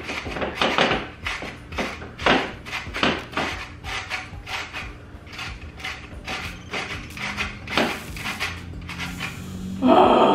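Zucchini being shredded on a metal box grater: repeated rasping strokes, about two or three a second, with a brief louder sound near the end.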